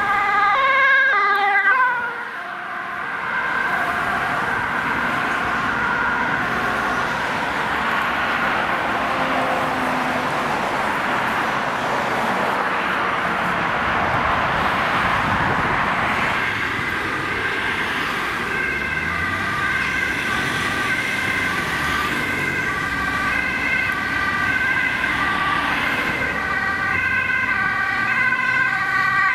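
Ambulance two-tone siren alternating high and low. In the first two seconds its pitch drops as the ambulance passes close by. Road traffic noise fills the middle, with the siren held further off, and from about two-thirds of the way in another ambulance's two-tone siren comes in clearly and stays to the end.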